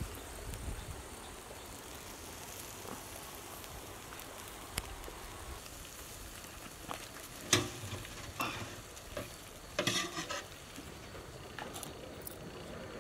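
Whole fish sizzling steadily on a charcoal grill, with several sharp clatters of the wire grill and handling in the middle stretch as the fish is lifted off.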